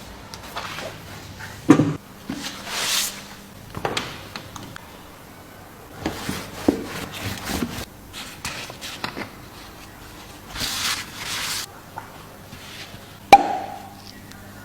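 Tools and parts being handled during a car oil change: scattered metal clinks, taps and knocks, two short bursts of rushing noise, and one sharp ringing metal clank near the end.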